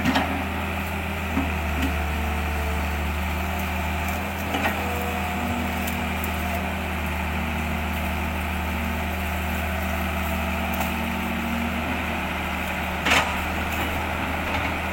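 Steady low mechanical drone, with three short knocks: one at the start, one about four and a half seconds in, and one near the end.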